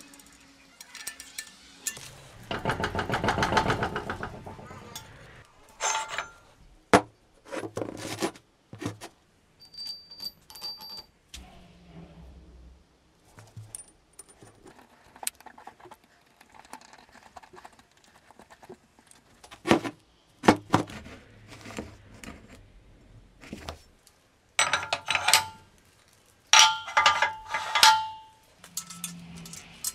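Metal clinking and knocking: scattered sharp strikes, a rattling stretch a few seconds in, and several ringing metallic strikes near the end.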